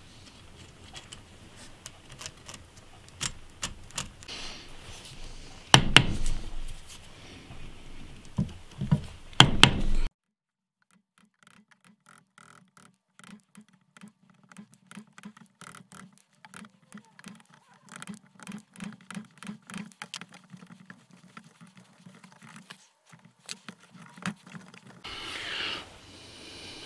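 Chisel cutting a hexagonal recess for a nut into ash hardwood: a few hard knocks in the first ten seconds, then after a short gap a long run of quick small taps and scrapes as the wood is pared out.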